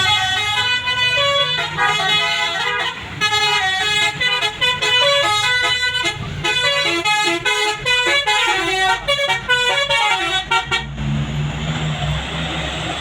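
Bus 'telolet basuri' musical air horn playing a fast melody of short stepped notes for about eleven seconds, then stopping abruptly, leaving the low rumble of the bus engine as it passes.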